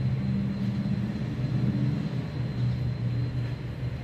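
A steady low mechanical drone, a running engine or motor in the background, with an even low hum that barely changes.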